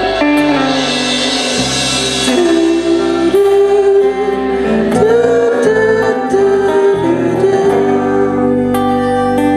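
Live band music: sustained chords with a sung melodic line bending over them and occasional cymbal and drum hits.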